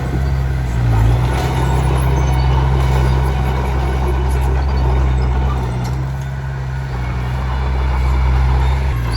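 Komatsu D21P bulldozer's diesel engine running steadily under load, with a rough clattering noise over it from the tracks and the stone being pushed. The sound eases slightly about two-thirds of the way through.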